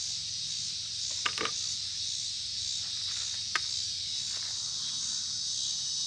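Steady chorus of insects singing in a high, even drone with a faint regular pulse. A few sharp clicks cut through it: two close together about a second and a half in, and one more a couple of seconds later.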